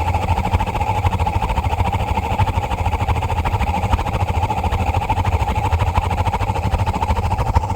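Gas burner of a 50-gallon water heater running with an abnormally big flame, making a loud, steady, fluttering rumble with no let-up. The owner says this condition makes the pipe inside turn red hot if the burner isn't shut down.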